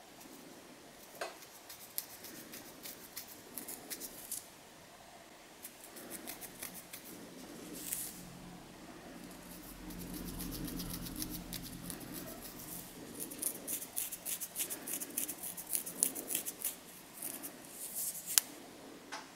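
Long fingernails scratching and scraping a dandruff-flaked scalp through the hair, making quick, dry, irregular scratchy clicks that come thickest in the last few seconds.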